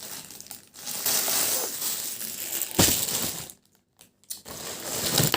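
Plastic packaging crinkling and rustling as it is handled and unwrapped. The sound drops out completely for about a second past the middle, then resumes.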